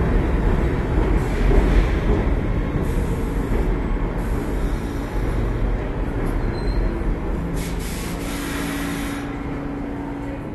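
New York City subway train running through the station: a heavy low rumble with a steady tone underneath, fading gradually, and a brief rise of high hiss around eight seconds in.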